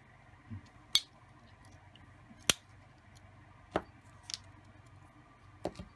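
Sharp metallic clicks of a Victorinox Champion Swiss Army knife's tools being handled and snapping shut into the handle, about five separate clicks a second or so apart.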